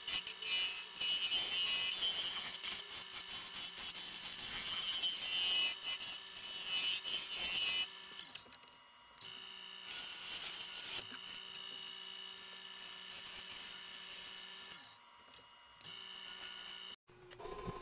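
Carbide-tipped turning tool scraping a spinning bowl blank of colored pencils set in epoxy resin on a Nova Comet II lathe: a rough, rasping cut over the first eight seconds. After that the cutting comes and goes over the lathe motor's steady hum.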